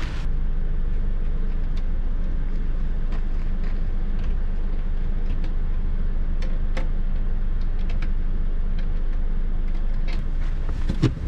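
Car heard from inside the cabin: a steady low rumble with scattered light ticks and clicks.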